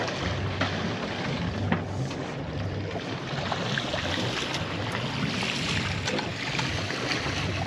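Steady wind and sea noise aboard a sailboat: water washing around the hull and wind rumbling on the microphone.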